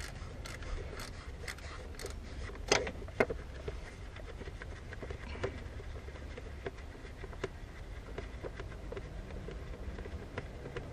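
Scattered light clicks and taps, the two loudest close together about three seconds in, from hands and gear being handled around an engine bay, over a steady low rumble.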